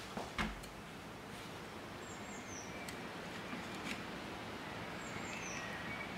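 A couple of light clicks near the start as a metal pick works at the rubber grommet in the outboard's leg, with one more faint click later. A small bird chirps faintly twice in the background, each time a short falling chirp.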